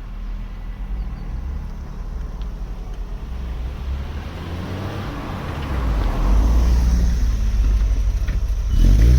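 A Vauxhall Cavalier's fuel-injected 1.8-litre engine and road noise during a drive: a steady low hum that gets louder about six seconds in, as if the car speeds up.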